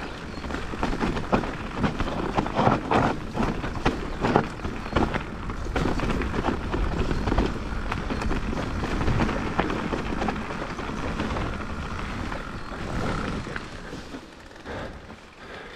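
Mountain bike riding fast down a trail: a steady rush of wind and tyre noise with the bike rattling and knocking over bumps, quieter near the end.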